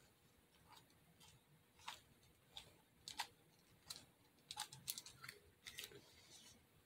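A metal ice cream scoop being worked on a tabletop as it shapes and releases a scoop of spackle: faint, irregular clicks and taps, a dozen or so, a little louder around the middle.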